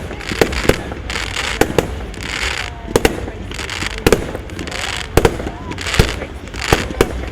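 Fireworks going off: irregular sharp bangs, several a second at times, with a fizzing hiss between them.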